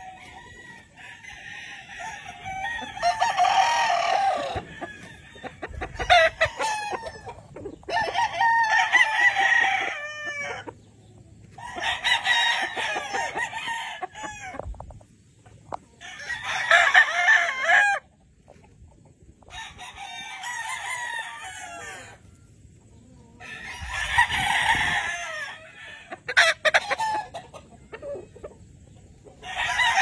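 Several game roosters crowing in turn, a long crow every three or four seconds, some nearer and louder than others.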